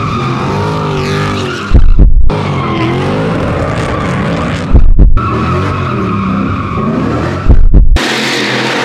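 Drift cars' engines revving and tyres squealing, broken three times, about every three seconds, by a short, loud, deep boom that cuts off sharply.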